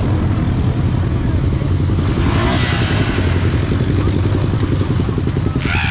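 ATV engine running steadily with a rapid low pulsing, with a rushing hiss swelling for about a second, two seconds in, and a short one near the end.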